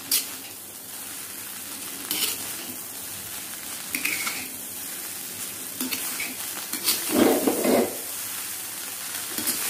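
Fried rice sizzling in a kadai on high flame, stirred and tossed with a steel slotted spoon that scrapes and clinks against the pan every second or two. There is a louder burst of stirring about seven seconds in.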